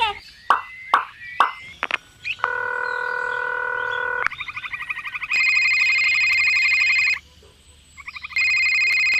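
Electronic sound effects: four short blips, then a steady buzzing tone for about two seconds. A fast trill follows and settles into a high steady ringing tone, which breaks off about seven seconds in and starts again with another trill.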